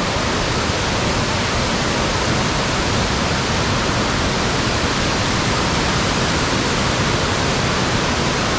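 Loud, steady rush of whitewater from a mountain creek's rapids and falls.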